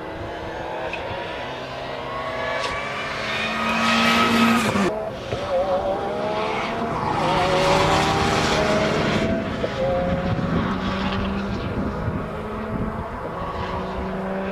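Rally car engines revving hard as the cars come past, the engine note climbing up to a sudden break just before halfway, then a second loud run of high revs that settles to a steadier drone near the end.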